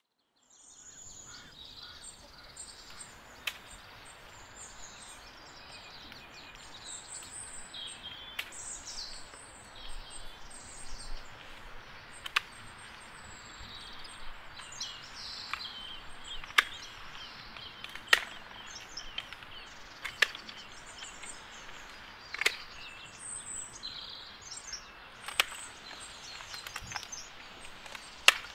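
Garden birds singing and chirping over a steady outdoor hiss. Sharp snips of hand pruning shears cutting through thorny stems come every two to four seconds, about ten in all, louder than the birds. The sound fades in from silence in the first second.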